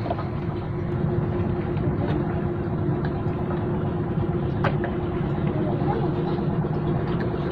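Small boat engine running steadily, a low rumble with a constant hum, and a single sharp click about four and a half seconds in.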